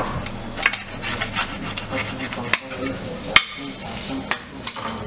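Kitchen clatter: a handful of sharp clicks and knocks, two of them louder, over a steady background hum.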